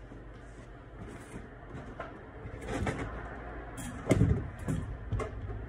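A few knocks and bumps, the loudest a little after four seconds in, over a low steady hum.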